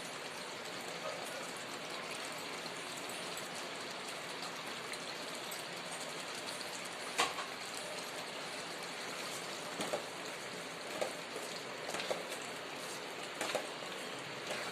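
Chicken keema curry sizzling steadily in oil in the pan, the masala fully fried so that the oil has separated. A few short sharp clicks sound in the second half.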